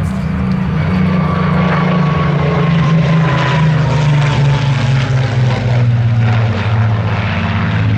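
Propeller-driven piston-engine warbird flying past, its engine note slowly falling in pitch as it goes by.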